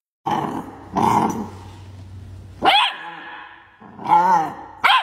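A puppy growling and barking. It opens with two rough growls, then gives a few higher, yelping barks.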